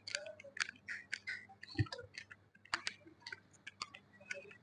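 Light, sharp clicks and ticks at uneven spacing, about four or five a second, over a faint steady hum.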